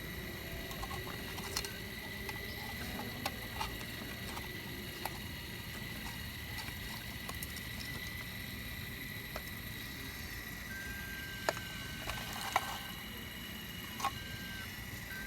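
A Caterpillar digging machine running steadily with a high whine over a low rumble, with scattered sharp clicks and knocks from digging into shale.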